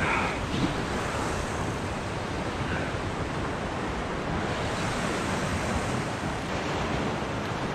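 Sea waves washing and surging against the shore with wind buffeting the microphone, a steady rush of noise.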